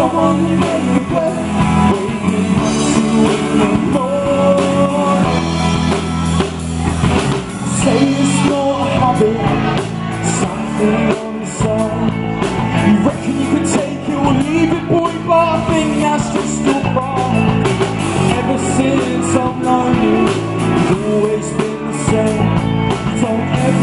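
Live rock band playing a song, with guitar, drum kit and singing.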